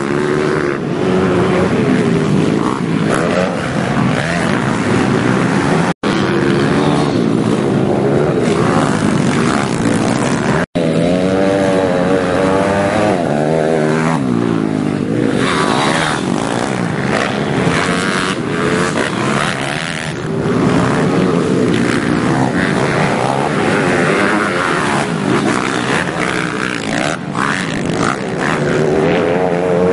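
Pit bike engines revving up and down as the bikes race over a dirt motocross track, with more than one bike heard at once. The sound cuts out for an instant twice.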